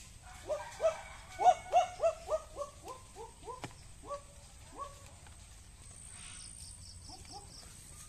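An animal calling: a run of short rising notes, about three a second, that fall gradually in pitch and die away about five seconds in. A single sharp click sounds partway through.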